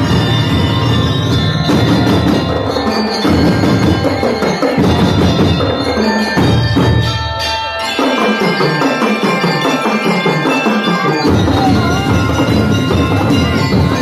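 School drum and lyre corps playing: metal bell lyres carry the melody over marching bass and snare drums. The deep bass drums drop out for about three seconds past the middle, leaving the lyres and lighter drums, then come back in.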